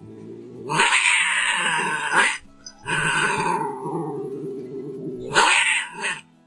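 Domestic cat yowling (caterwauling): three harsh, drawn-out cries in a row. The first lasts about a second and a half, the second about two and a half seconds, and a shorter one comes near the end.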